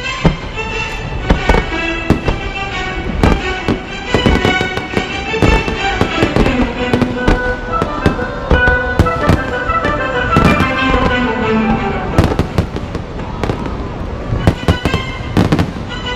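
Fireworks bursting in many sharp bangs and crackles over music played for the show.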